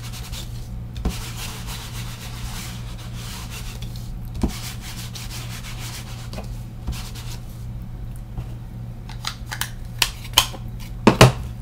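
Distress ink pad rubbed back and forth directly across a paper shipping tag, a steady dry scraping. Near the end a few sharp clicks and knocks as the pad is handled.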